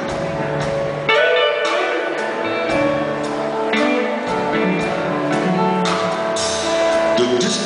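Live band playing an instrumental passage of a slow soul ballad: hollow-body electric guitar playing a lead over keyboard backing.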